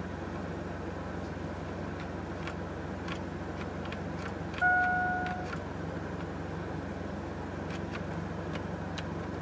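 Chevy Astro van engine idling steadily, with a few faint clicks. About halfway through comes a single beep lasting about a second, the loudest sound.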